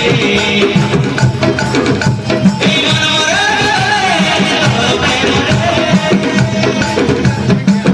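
Folk music led by drums and hand percussion in a steady beat, with a wavering melodic line over it.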